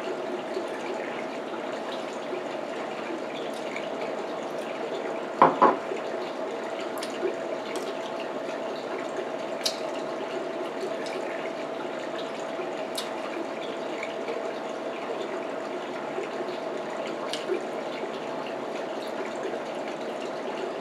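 Steady rushing background noise with a constant low hum, with two sharp knocks close together about five and a half seconds in and a few faint clicks of eating and handling things at a table.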